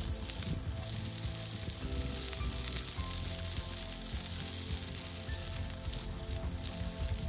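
Pieces of meat sizzling and frying in a steel frying pan over a wood fire, a steady hiss with many small pops.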